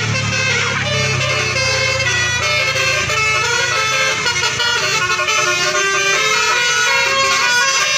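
Bus sounding a telolet basuri horn: a multi-note musical horn playing a tune of held notes that step from one pitch to the next, over the low rumble of the bus's engine in the first few seconds.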